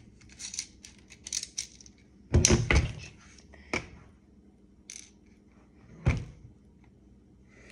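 Clicks and knocks from a plastic BB pistol being handled: light scratchy clicks at first, then a few sharper knocks, the loudest about two and a half seconds and six seconds in.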